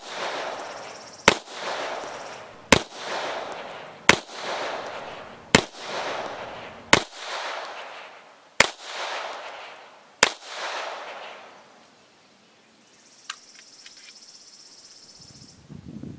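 Polish P-83 pistol in 9×18mm Makarov firing seven shots about one and a half seconds apart, each with a long echo, the gun cycling each handloaded round without a stoppage. A faint click follows a few seconds after the last shot.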